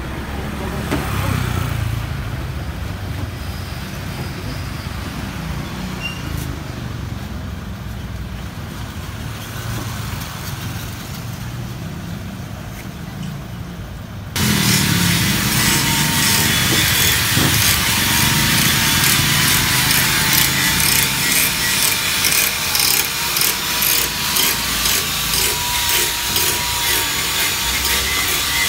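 Low, steady outdoor rumble. About halfway through, it cuts abruptly to a loud, rhythmic rasping of wood being sawn, stroke after stroke.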